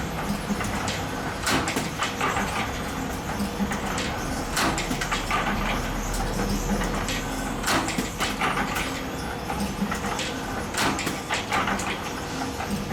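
Spring-making machine running: a steady hum broken by irregular sharp clacks and knocks every second or few.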